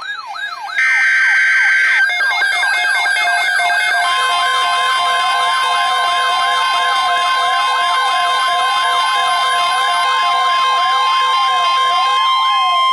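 Emergency alert broadcast tones: a brief burst of warbling data tones in the first seconds, then a steady single alert tone from about four seconds in, all under several overlapping wailing siren sweeps that rise and fall continuously.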